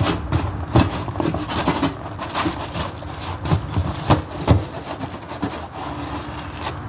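A frozen pizza and its packaging being handled: a series of clicks, knocks and scrapes, about one or two a second, over a steady low hum.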